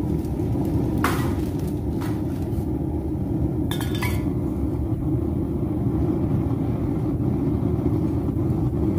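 Propane melting furnace burner running with a steady low rumble. A few short clinks and rustles, about 1, 2 and 4 seconds in, come from aluminum cans being handled in a plastic bag beside it.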